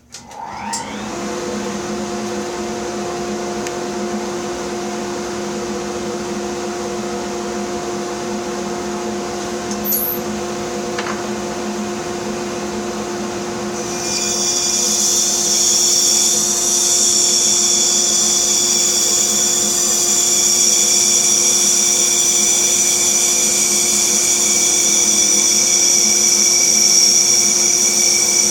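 Bandsaw motor starting up and running steadily with a hum; about halfway through the blade begins cutting the wood block and a louder high-pitched whine joins in.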